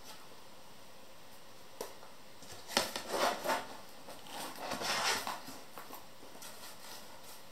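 A flexible sheet of bamboo slats rustling and knocking as it is bent around a round wooden table frame and pressed into place. A single knock comes about two seconds in, then a cluster of rustles and clacks about three to five seconds in.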